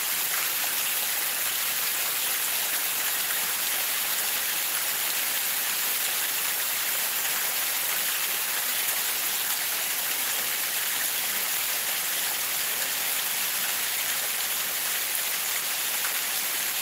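Rainwater rushing down a small stepped stone ditch, mixed with steady falling rain, making an even hiss.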